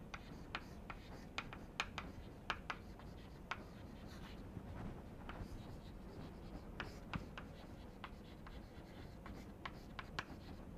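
Chalk writing on a blackboard: faint, irregular sharp taps and short scratching strokes as words are written.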